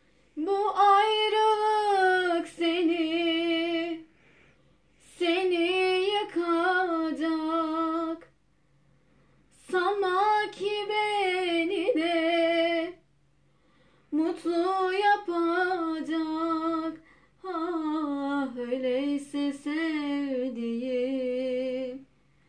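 A woman singing solo and unaccompanied, in five long phrases with short breaths between them. Her pitch wavers and bends in ornaments, and the recogniser makes out no words.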